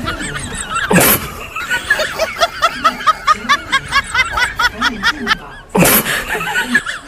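Edited-in comic laughter sound effect, a fast run of short high giggles, over background music. Two brief bursts of noise come about a second in and again near the end.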